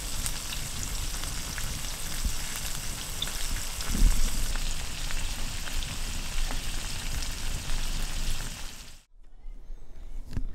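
Meat sizzling and crackling as it fries, a steady hiss full of small pops; it stops abruptly about nine seconds in.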